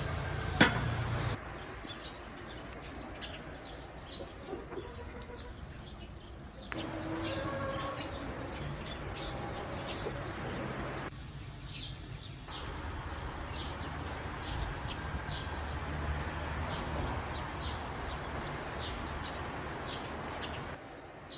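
Small birds chirping in short repeated calls over a steady outdoor background, which changes abruptly several times.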